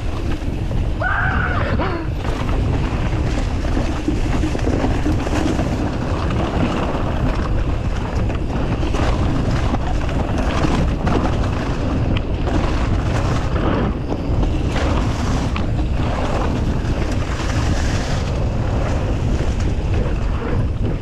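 Wind buffeting the microphone of a camera on a mountain bike riding fast down a dirt trail, with frequent knocks and rattles from the bike over bumps. A brief high squeal sounds about a second in.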